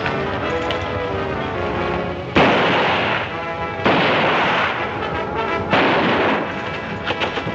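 Three gunshots, each with a short ringing tail, over background film music.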